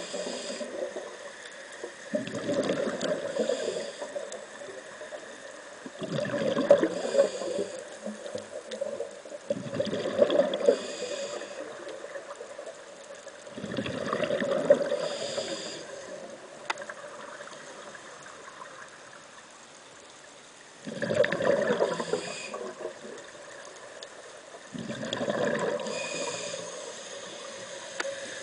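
Scuba diver breathing through a regulator underwater: a gurgling rush of exhaled bubbles about every three to four seconds, with a longer pause around the middle.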